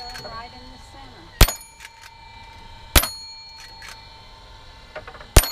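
Three shots from a Walther CO2 lever-action .177 air rifle, about a second and a half apart. Each is a sharp crack with a metallic ring that hangs on as the pellet strikes the metal targets.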